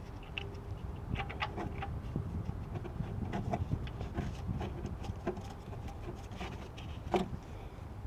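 Faint, irregular clicks and light taps of a drain plug being fitted and threaded in by hand during an oil change, over a steady low hum.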